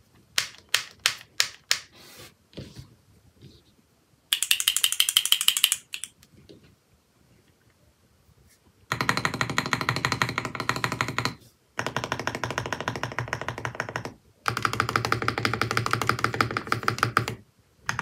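Typing on a Sugar65 aluminium mechanical keyboard fitted with Durock Piano linear switches. There are a few single keystrokes in the first couple of seconds, a short rapid burst of keystrokes a little after four seconds, then three runs of fast typing from about nine seconds on, each broken by a short pause.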